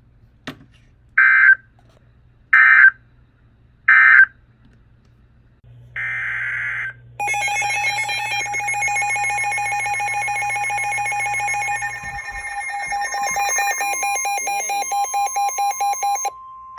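NOAA Weather Radio alert signalling: three short bursts of SAME digital data tones about a second and a half apart, then a further burst. An electronic alert alarm follows, beeping rapidly for about nine seconds with a steady tone joining partway through. This sequence heralds a new severe thunderstorm warning.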